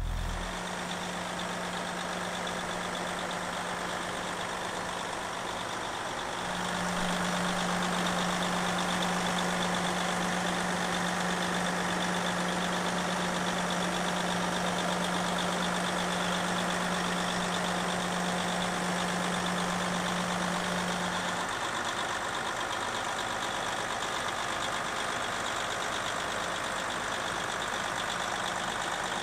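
Heavy truck's diesel engine idling steadily, a little louder from about six seconds in.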